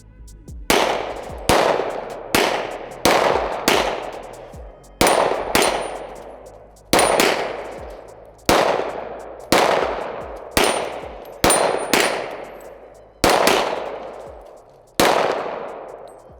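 Rapid handgun fire, about seventeen shots at an uneven pace of roughly one a second, from two shooters racing on a steel dueling tree. Several hits end in a brief high ping from the steel plates.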